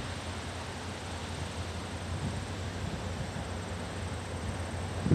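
Steady outdoor background noise: an even hiss over a low, constant hum, with no distinct events.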